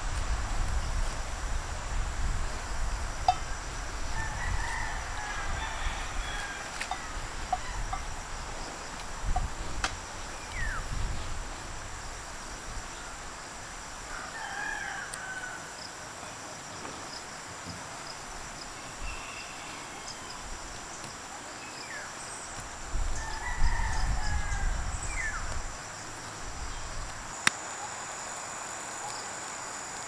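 Roosters crowing several times in the background over a steady high insect drone, with a few sharp clicks from a knife splitting a stick of kindling.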